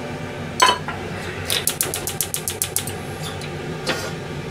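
Kitchen clicking: one loud sharp click, then a quick regular run of sharp clicks at about eight a second, and a few single clicks near the end.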